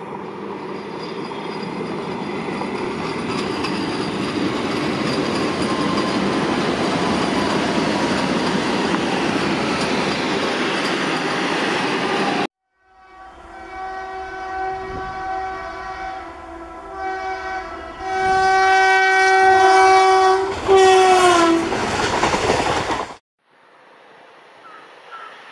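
Vande Bharat Express trainset running past on the rails, its running noise growing louder over the first few seconds and then holding steady until it cuts off suddenly about halfway through. A train horn then sounds in several blasts, the longest ending with the pitch falling as the train goes by.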